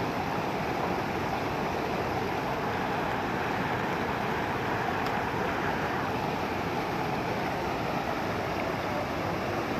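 Swollen, muddy river in flood rushing steadily, a continuous even noise of fast-moving water.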